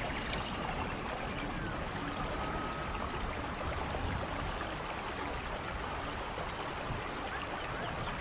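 Steady rain, an even rushing hiss, with a few faint, short, high animal chirps over it.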